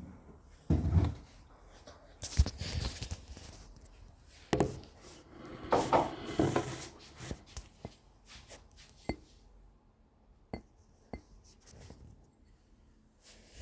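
Kitchenware being handled: scattered knocks and a few light clinks, with some heavier handling noise in the first half and sparser clicks later.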